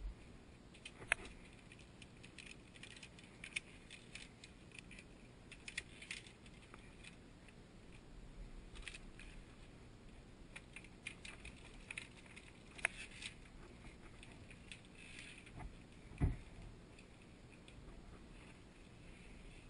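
Via ferrata lanyard carabiners clinking and sliding along the steel safety cable, a scatter of small metallic clicks. There is a single dull thump late on.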